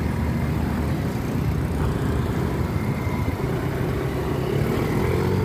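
Motor scooter engines running among road traffic, a steady low rumble, heard from the back of a moving scooter.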